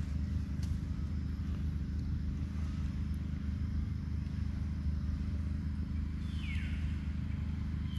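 An engine running steadily with a low, even hum. About six seconds in comes a short high call that slides downward in pitch.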